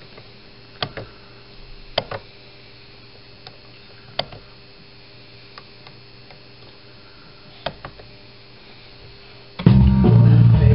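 Scattered sharp clicks of a rotary encoder knob being turned and pressed, over a faint steady hum. Near the end, guitar music starts playing loudly through the speakers.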